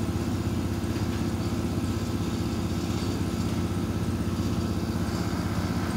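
An engine idling steadily, a low, even drone that does not change.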